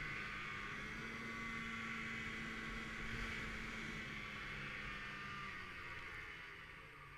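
Snowmobile engine running at a steady speed, then easing off near the end.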